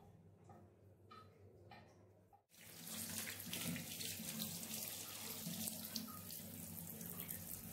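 A few faint clicks, then a bathroom tap running into a ceramic washbasin. The water starts suddenly about two and a half seconds in and runs steadily, splashing over a toothbrush being rinsed under the stream.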